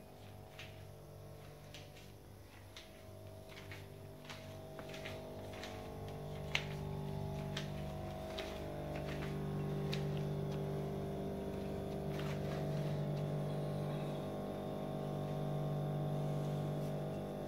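A low, steady hum that grows louder about halfway through, with a scatter of light clicks and ticks in the first part.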